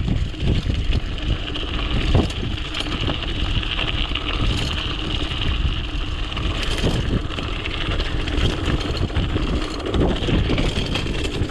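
Btwin Rockrider 540S mountain bike ridden down a rough dirt trail: wind buffeting the helmet camera's microphone over the rumble of tyres on the ground, with sharp knocks and rattles from bumps, the loudest about two seconds in.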